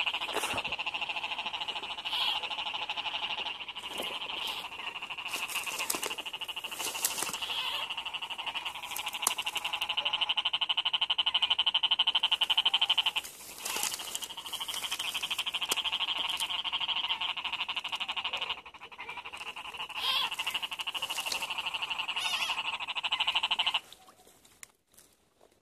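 A dense chorus of frogs calling after heavy rain: a fast pulsing trill in two pitch bands, dipping briefly twice and cutting off suddenly near the end.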